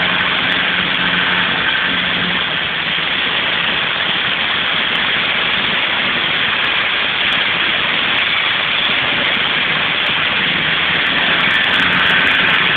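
High-pressure water jets from a robotic water-blasting head striking a steel ship hull: a loud, steady hiss, with a low machine hum underneath that fades for a while and comes back near the end.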